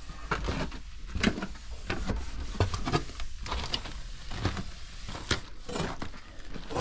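Footsteps crunching and knocking over debris on a decayed floor, irregular, over a low rumble.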